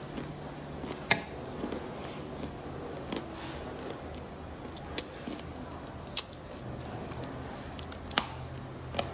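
Hard dark chocolate being bitten and crunched: about five sharp, separate cracks spread over several seconds, over a faint steady low hum.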